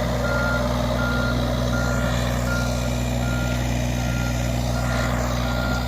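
Reversing alarm on a work vehicle beeping steadily, a little over once a second, over the steady running of its engine.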